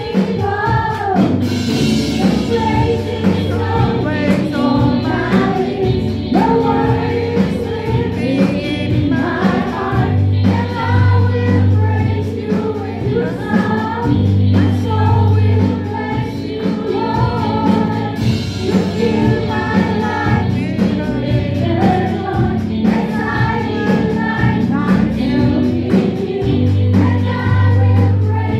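Live worship song: a band with drums plays while a woman leads the singing and the congregation sings along.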